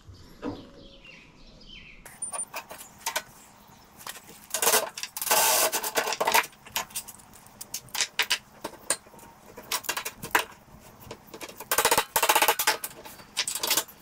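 Welder laying short tack welds on the kart's steel suspension, crackling bursts of a second or two, twice strongest: about five seconds in and about twelve seconds in. Scattered sharp metallic clicks and clinks between them.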